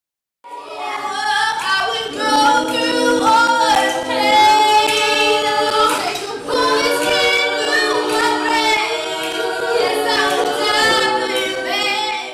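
Five women singing a cappella in harmony, several voices together with no instruments. The singing starts about half a second in, after a short silence.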